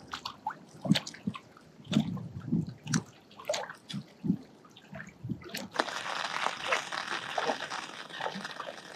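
Lake water sloshing and splashing at the shore with scattered drips of light rain; about six seconds in, a steady hiss of rain and wind-driven water takes over.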